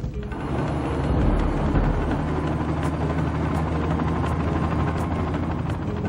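Helicopter running, with steady rotor and engine noise.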